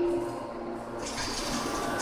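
Hot forging press machinery running: a steady hum under a hiss that eases off soon after the start and picks up again about a second in.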